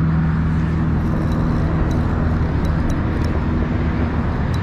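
Steady low mechanical hum, like a motor or engine running, with a few faint high clicks scattered through it.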